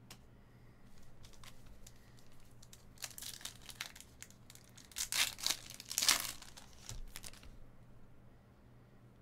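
A foil trading-card pack wrapper being torn open by hand, crinkling in several bursts, loudest about halfway through.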